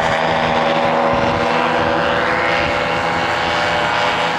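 Paramotor engine and propeller running steadily at a loud, even pitch as the paramotor flies past low.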